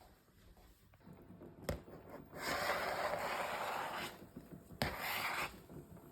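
Cooking at a frying pan with oil and butter: a knock, then about two seconds of rasping noise, a second knock and a shorter rasp.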